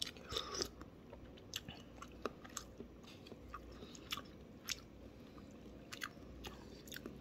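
A person chewing a mouthful of bakso, with soft, irregular short clicks and smacks, a small cluster about half a second in.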